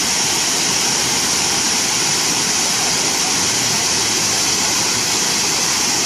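Water from an overflow weir tumbling down low stepped cascades into a stream: a loud, steady rush of white water.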